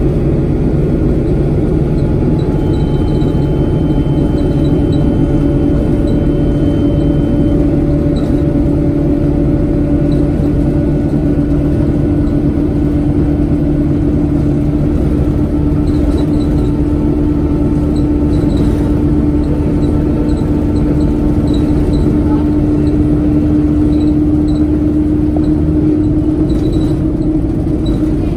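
Inside an Alexander Dennis Enviro 200 single-deck diesel bus under way: the engine and drivetrain drone steadily with a constant hum, along with faint scattered ticks and rattles from the cabin.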